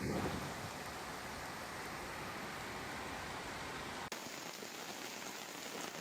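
Steady rain hissing. About four seconds in the sound changes abruptly and the low rumble drops away, leaving a thinner hiss.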